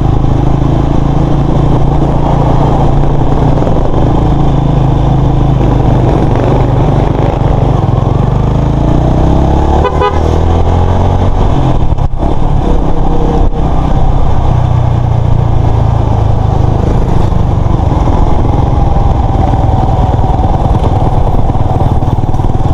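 Motorcycle engine running steadily while riding, under a heavy rush of noise, with a short horn toot about ten seconds in.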